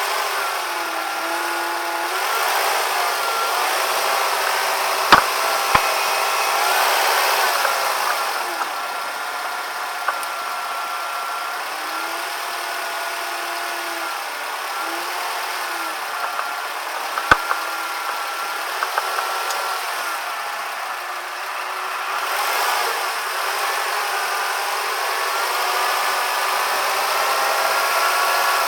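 Suzuki Jimny running, its engine note drifting up and down in pitch, with a few sharp clicks now and then; this is the abnormal vibration noise the owner is recording from the chassis.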